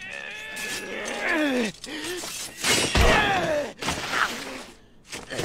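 Sword-fight sound effects: metal blades clashing and ringing, with strained cries sliding down in pitch and a heavy impact about three seconds in.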